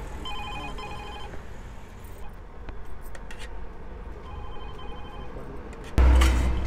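A pulsing electronic ringing tone sounds twice, about a second each time: once just after the start and more faintly about four seconds in, over steady low street noise. A loud knock comes about six seconds in.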